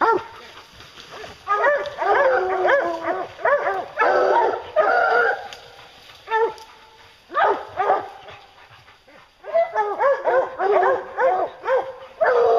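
A pack of English hounds baying and barking in quick bursts at the base of a tree: the treed bark of hounds that have a black bear up the tree. The barking eases off briefly past the middle, then picks up again.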